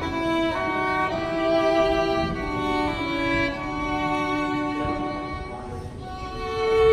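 Violin and viola playing a slow hymn-tune duet in long, held bowed notes. The music softens about five and a half seconds in and swells again near the end.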